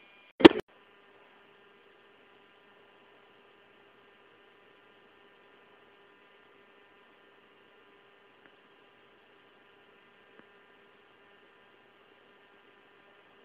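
A single sharp click about half a second in, then a faint steady electrical hum with several fixed whining tones over a low hiss, the recording's own circuit noise.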